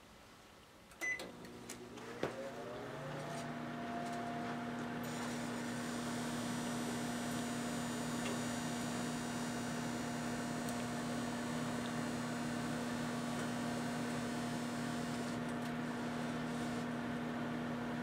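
Microwave oven being switched on: a short beep and a click about a second in, then a whir that rises in pitch as it comes up to speed. A steady hum follows as the oven runs.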